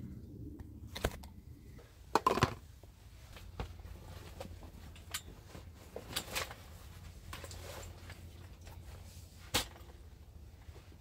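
Light clicks and knocks of eating utensils against dishes, scattered unevenly, with a short cluster of louder knocks about two seconds in and a single sharp knock near the end.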